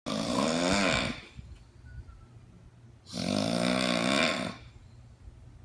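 A person snoring: two snores, each a little over a second long, about three seconds apart.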